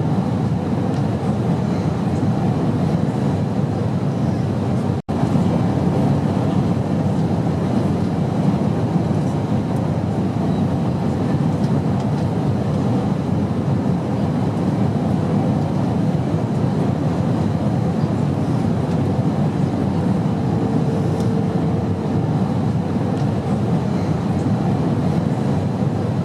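Airplane cabin noise in flight: a steady, even rush of engines and airflow, heaviest in the low range. It cuts out for an instant about five seconds in.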